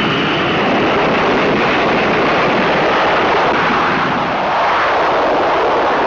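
Jet engines of a US Navy F-4 Phantom II, its twin J79 turbojets, running at takeoff power during a launch from an aircraft carrier. They make a loud, steady roar that dips briefly about four seconds in.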